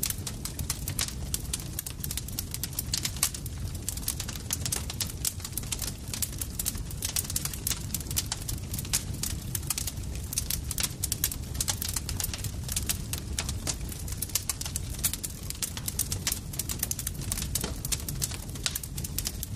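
Campfire crackling: dense, irregular pops and snaps over a steady low rumble of the burning fire.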